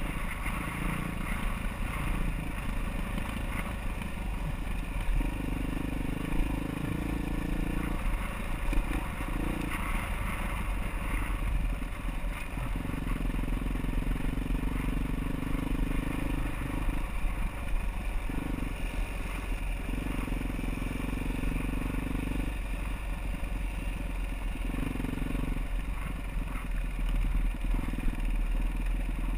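Off-road motorcycle engine running on a trail ride, its pitch holding steady for a few seconds at a time and then shifting as the throttle changes. Frequent short knocks and clatter run over it.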